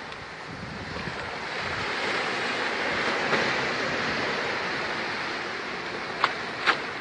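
Ocean surf breaking and washing up a sand beach, a steady rush that swells to a peak midway and then eases off. Two sharp clicks come close together near the end.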